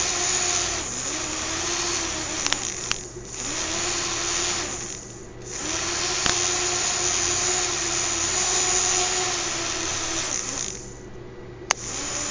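The two small electric motors and propellers of a fischertechnik monorail carriage whirring. They cut out briefly about three and five seconds in and again near the end, and spin back up each time. There is one sharp click near the end.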